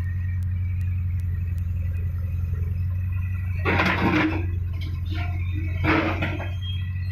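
Backhoe loader's diesel engine running steadily with a low drone. Two short, louder noisy bursts break in about halfway through and again near the end.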